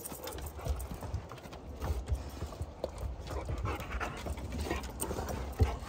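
A dog panting and moving about, with irregular light taps and clicks.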